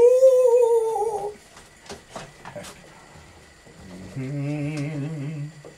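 A man's voice sliding up into a long, high falsetto note that sags slightly before it stops, followed by a few light kitchen clicks. Near the end he hums a low, wavering note for over a second.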